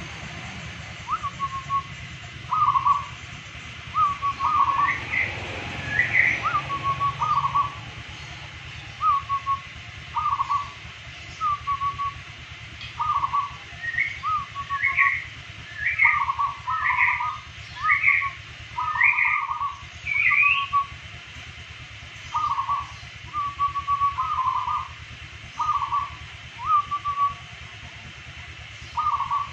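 Zebra dove (perkutut) cooing in short repeated phrases, about one a second. A second bird's higher, short rising notes come in twice: briefly early on, then in a run near the middle.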